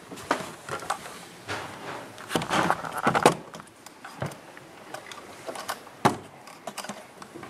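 Handling noise from a handheld video camera being picked up and moved: scattered knocks, clicks and rustles, busiest about three seconds in, with a sharp knock about six seconds in.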